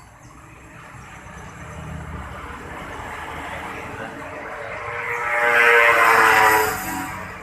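A motor vehicle's engine growing steadily louder over several seconds, peaking loud with its pitch sliding down, then fading away.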